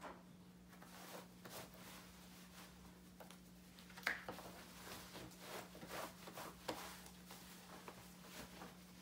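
Faint rubbing and rustling of a prosthetic leg's socket, liner and suspension sleeve as the residual limb is pushed into the socket and the sleeve is rolled up over it, with one louder short scrape about four seconds in.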